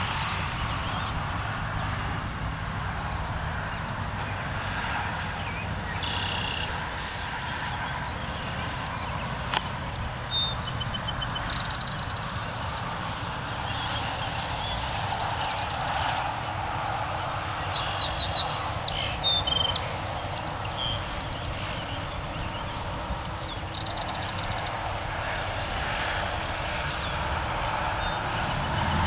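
Brief high chirps and trills from small birds, a burst about ten seconds in and a louder cluster near twenty seconds, over a steady outdoor background hum. A single sharp click comes just before the first chirps.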